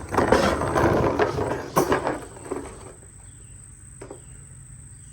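About two and a half seconds of loud clattering handling noise with a few sharp clicks, then quieter, with a steady high-pitched insect trill going on throughout.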